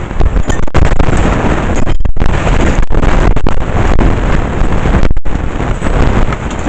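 Vacuum cleaner running loud and close, a heavy rushing rumble that drops out briefly twice, about two and five seconds in.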